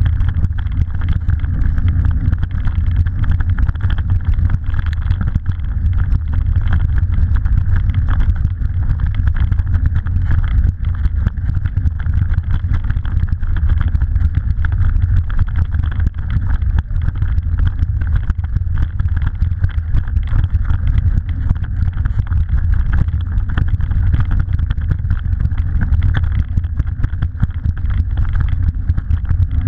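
Mountain bike rolling over a bumpy grass singletrack, heard through a bike-mounted action camera: a steady low rumble with constant rattling and clicking from the bike and mount.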